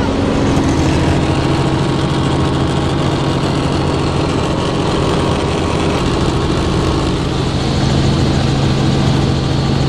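Helicopter in flight, its engine and rotor noise heard from inside the cabin as a loud, steady drone with a low hum.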